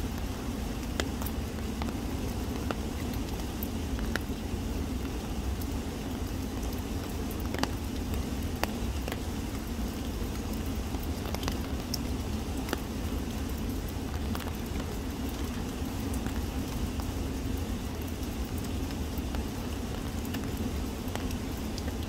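Steady rush of the River Jadro flowing, with scattered, irregular ticks of raindrops falling on leaves.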